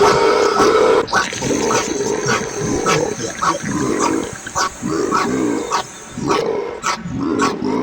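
Cartoon sound effect of animal-like vocal noises with a wavering pitch, over sharp clicks that repeat about twice a second.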